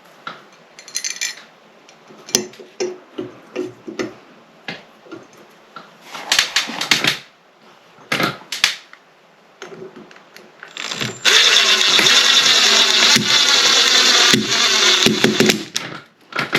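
Power drill running in one loud, steady burst of about four and a half seconds in the second half, working at the shelf bracket on a solid wall. Before it come scattered knocks and a couple of short, sharp sounds.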